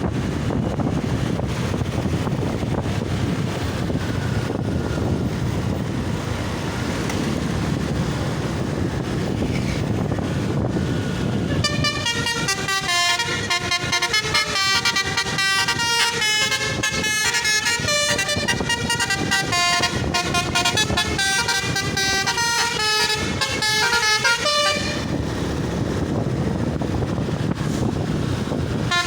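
A low, noisy rumble, then about twelve seconds in a Basuri multi-tone 'telolet' horn plays a fast tumbling tune of short stepped notes for about thirteen seconds before stopping. The tune starts again right at the end.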